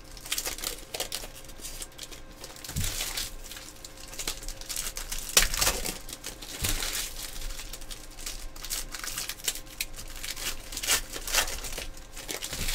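Foil wrappers of Panini Select Soccer card packs crinkling and tearing as they are ripped open by hand, in irregular sharp crackles with several louder rips.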